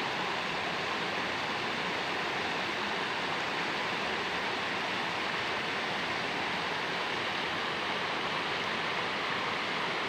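Water of a waterfall rushing and splashing down a rocky cascade, a steady even hiss.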